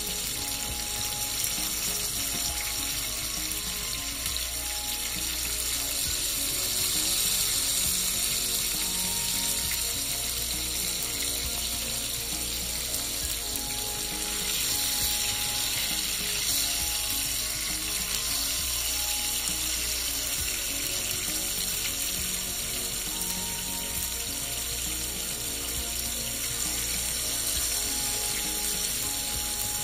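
Pieces of red snapper frying in shallow oil in a nonstick pan, with a steady sizzle.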